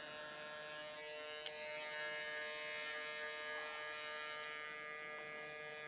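Electric hair clippers buzzing steadily as they cut a soft taper into the hair at the nape of the neck. A single sharp click comes about a second and a half in.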